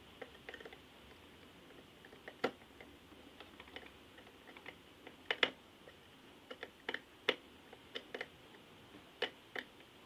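Small screwdriver clicking and tapping against the terminal screws of a plastic batten lamp holder as they are tightened. The clicks are scattered and irregular, some in quick pairs.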